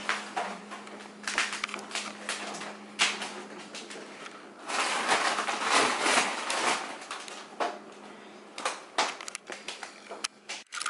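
Plastic snack bags and grocery packaging rustling and crinkling in irregular bursts as they are handled, densest about five to seven seconds in.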